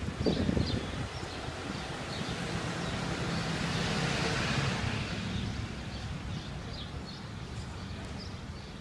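A vehicle passing on a city street, swelling to its loudest about four seconds in and fading, over a steady low rumble, with short high chirps of small birds.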